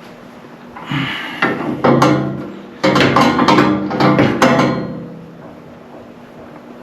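Metal hand tools clanking and rattling, a run of sharp knocks and clicks with some ringing, from about a second in until about five seconds in.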